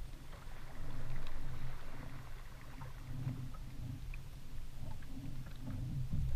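Small waves slapping against the hull of a flats skiff in low, uneven pulses.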